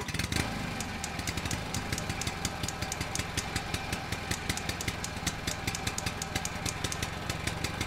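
An engine running steadily, with rapid, even ticks over a low hum.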